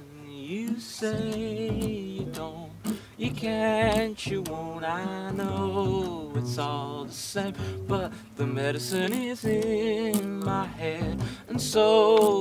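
Acoustic guitars played live, strummed and picked, with a man singing a slow melody over them, starting about half a second in.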